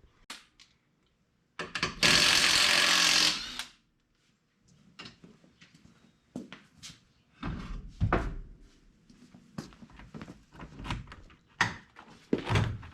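Wheels and tires being handled and tossed into a pickup bed: heavy thuds and knocks. About two seconds in comes a loud, steady rushing noise lasting about two seconds.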